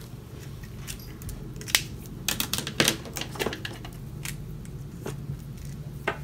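A run of short, sharp clicks and taps of pens being handled on a desk: capped, put down and picked up, clustered about two to three seconds in, over a steady low hum.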